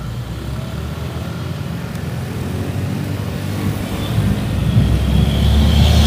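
Road traffic: a motor vehicle's engine running with road noise, a low rumble that grows steadily louder over the last two or three seconds as the vehicle draws closer.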